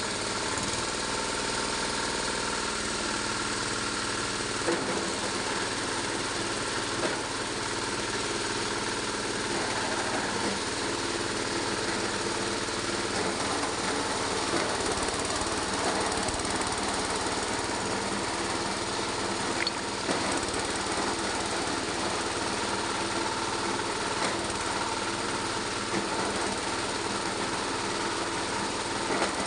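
Coconut husk shredding machine (cocopeat shredder) running steadily, with a few brief sharp knocks.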